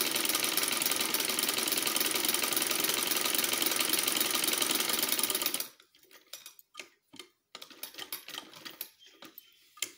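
Sewing machine running fast and steady, its needle stitching a seam through layered cotton fabric, then stopping abruptly a little over halfway through. After it stops there are only a few light clicks and rustles.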